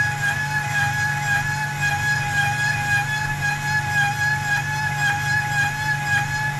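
Valve-seat cutting machine running with a steady whine as its cutter machines out the port throat of an aluminium cylinder head.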